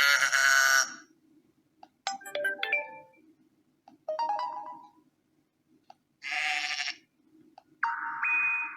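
ZTE Blade A3 2019 smartphone's speaker playing its preset ringtone and alert sounds one after another: five short clips of about a second each with brief gaps, some of them runs of pitched notes, one a held tone that steps up in pitch partway through.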